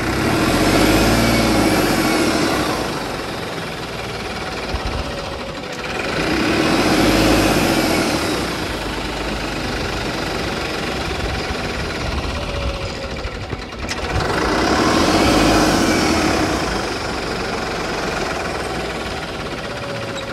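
Farmtrac 45 tractor's three-cylinder diesel engine labouring under load as it pulls a cultivator in first high gear, swelling louder and easing off three times. The owner says the engine has lost its backup torque, and it is running with black smoke.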